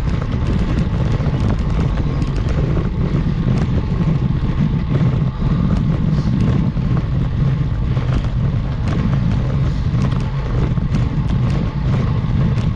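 Steady low rumble of wind and riding noise on an action camera's microphone during a road-bike climb, with scattered faint clicks.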